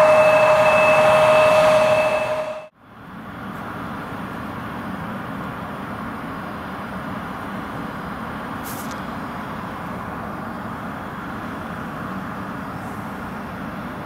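Bombardier CRJ-900's General Electric CF34 turbofans running at taxi power close by: a loud, steady whine with two held tones that cuts off suddenly a little over two seconds in. After that comes a much quieter, steady low rumble from the jet idling far off on the runway.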